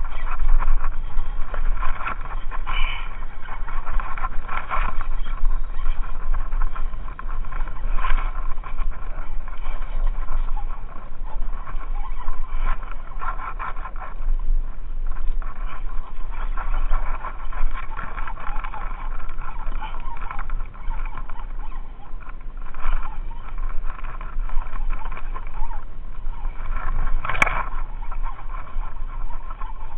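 Wind buffeting the microphone and choppy water splashing against a kayak's hull, a steady rushing noise that swells and eases, with one sharp knock near the end.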